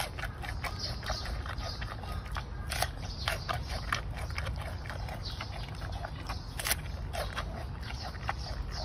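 Giant panda chewing a bamboo shoot: irregular crisp crunches and wet mouth clicks, several a second, over a steady low rumble.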